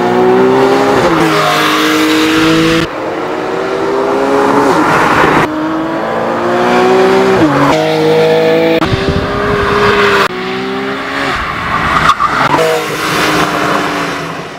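Porsche 911 (991) Carrera S flat-six engine revving hard under acceleration, its pitch climbing and then dropping again several times as it is driven through the gears, with a hiss of road and tyre noise underneath.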